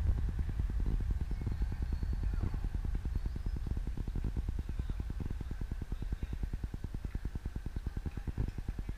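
A low rumble with a fast, even pulse, steady throughout, under faint distant voices.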